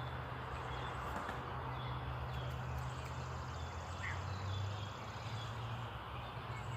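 Outdoor background noise with a steady low hum and faint short bird calls repeating every second or so.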